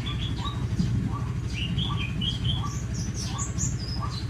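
Birds chirping: short calls repeating about twice a second, with higher, quicker chirps between them, over a steady low hum.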